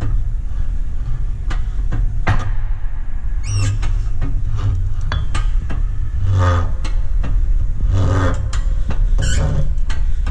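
Shop press forcing a new support bearing down onto an Audi B8 left driveshaft through a pipe, pressing it on until it seats. There is a steady low rumble throughout, with a few short squeaks and clicks several seconds in.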